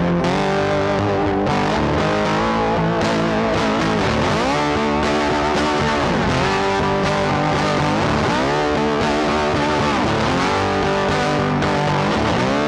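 Background music led by a distorted electric guitar, with notes that bend or slide in pitch several times.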